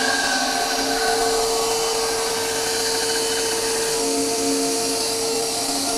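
Bandsaw running steadily with dust extraction drawing through a hose at the jig, its blade cutting the curved arch into the end of a wooden fence picket. A steady hum with a constant tone over a broad hiss.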